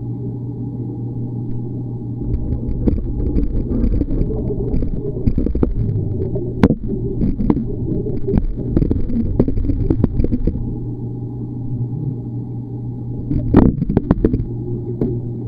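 Sound heard underwater in a swimming pool: a steady low hum, overlaid from about two seconds in until about ten seconds by churning, bubbling water and sharp knocks as swimmers move close to the camera. A shorter burst of knocks and bubbling comes near the end.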